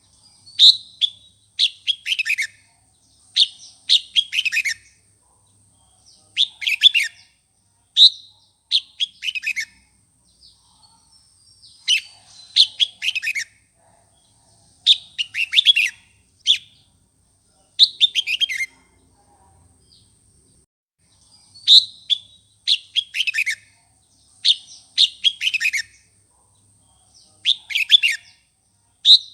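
Red-whiskered bulbul singing a heated, challenging song: short clusters of quick notes that fall in pitch, repeated every second or two with brief gaps. A faint steady high whine runs underneath.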